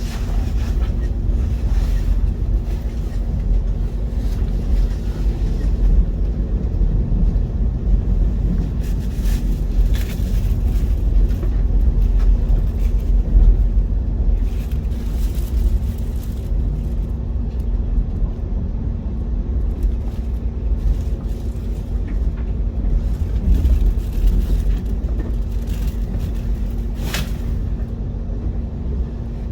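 Train running, a steady low rumble with a constant mechanical hum and occasional faint clicks.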